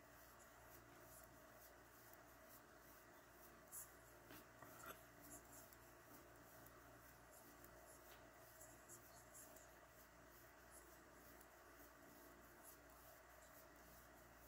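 Near silence: faint steady room hum with soft scratchy ticks of a 6.5 mm crochet hook pulling yarn through chain stitches, a few slightly louder around four to five seconds in.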